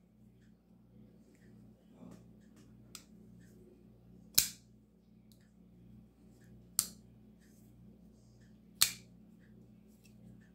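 Bestech Thorn folding knife flipped open with its flipper tab three times. Each time the blade snaps into the locked-open position with a sharp click, the snaps about two seconds apart. Fainter clicks come in between as the blade is folded shut.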